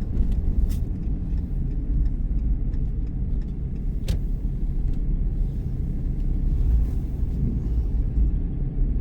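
Steady low rumble of a truck engine running, with a couple of light clicks, one sharper about four seconds in.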